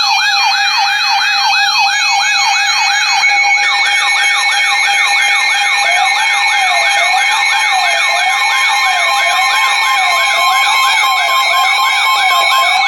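Electronic alert sirens, several layered: a steady tone under fast yelping sweeps, joined about three and a half seconds in by more sweeps and then by a slower warble dipping about once a second. The alert sounds ahead of a severe thunderstorm warning.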